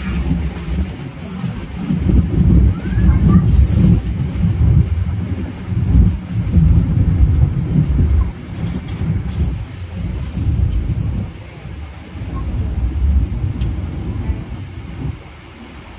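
Suburban electric multiple-unit train running on the track: a heavy low rumble that swells and eases, with thin, high-pitched wheel squeal that comes and goes, strongest around ten seconds in.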